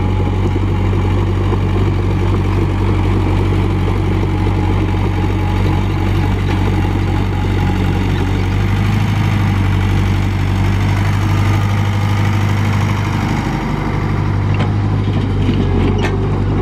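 Komatsu mini excavator's diesel engine running steadily with a low hum while the machine tracks and swings, its tone dipping briefly near the end. A couple of sharp knocks near the end.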